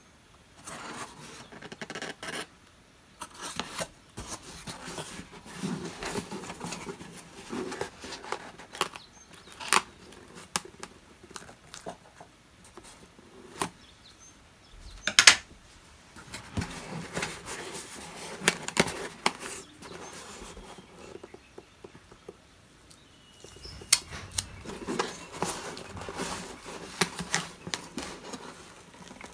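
Hands handling a cardboard box: rustling, scraping and knocks of cardboard as its flaps are folded shut on a wooden table, with scattered sharp clicks. Near the end, washi tape is handled and pressed onto the box.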